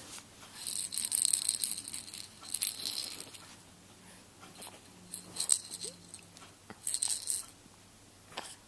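Four short bursts of high rattling or rustling, like a small object being shaken or handled, the first lasting about a second.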